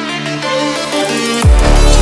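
Electronic dance music with a dubstep feel: sustained synth notes, then a heavy bass drop about one and a half seconds in.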